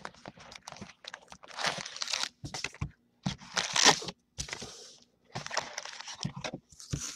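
Cardboard trading-card hobby box and wrapped card packs being handled, the wrappers crinkling and the cardboard scraping in about four short bursts, loudest about four seconds in.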